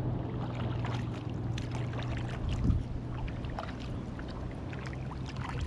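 Water splashing and dripping as the Oru Inlet folding kayak is paddled, many small irregular splashes and drips over a low steady hum, with a dull thump about halfway through.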